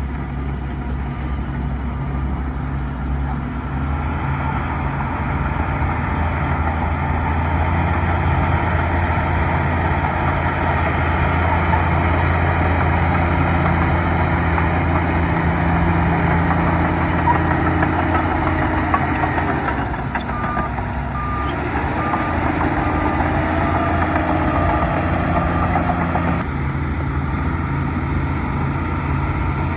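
Bulldozer's diesel engine running steadily, working harder for most of the stretch and then easing off near the end. A reversing alarm beeps at an even pace for several seconds in the latter part.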